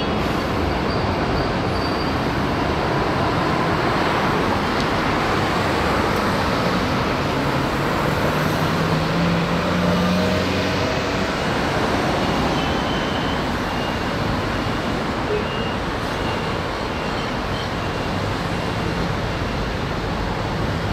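Steady city road traffic, with cars and buses passing through a busy intersection. One passing vehicle's engine hum stands out about nine to ten seconds in.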